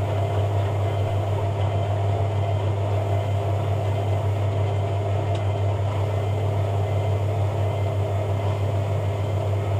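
Hoover A3786 Logic 1200 washing machine running steadily on a spin cycle, a constant low hum and whir.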